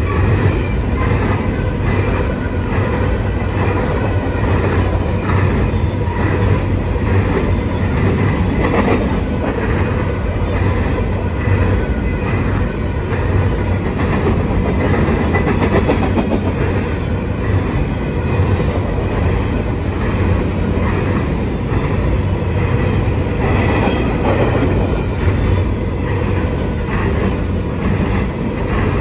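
Empty covered hopper cars of a long freight train rolling past close by: a steady loud rumble of steel wheels on the rails, with a repeating clickety-clack as the wheels cross the rail joints.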